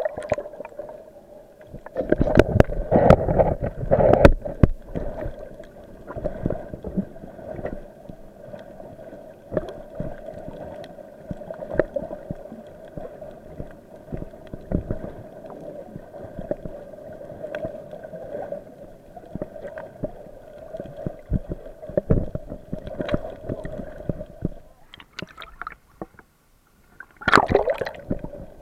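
A steady boat-engine hum heard through the water, with scattered crackling clicks and bursts of bubbling and splashing, the loudest about two seconds in and near the end.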